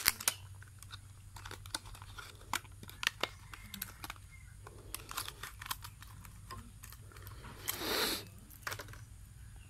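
Thin clear plastic lure packaging crinkling and clicking as fingers pry it open and work a small minnow lure out of it: many short irregular crackles, with a longer rustle about eight seconds in.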